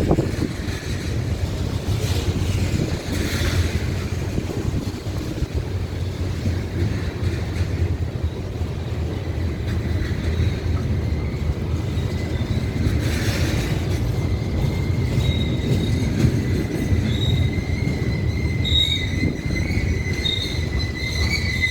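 Ferromex freight train rolling past, a steady low rumble of the cars on the rails. From about two-thirds of the way through, a thin high wheel squeal comes and goes.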